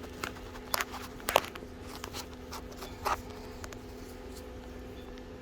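Hex wrench working the single retaining bolt of a Tektro brake caliper's pads: a few sharp, light metal clicks and taps, the loudest about a second and a half in, over a faint steady hum.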